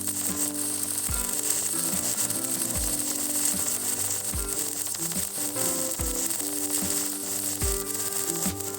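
Electric welding arc crackling and sizzling steadily while a horizontal fillet weld is run. Background music with held notes and a regular falling bass-drum beat plays over it.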